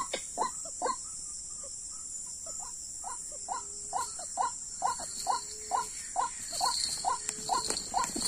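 White-breasted waterhen (ruak-ruak) calling: a run of short, repeated croaking notes, about two to three a second, which pauses for a couple of seconds about a second in and then resumes faster. A steady high insect drone runs underneath.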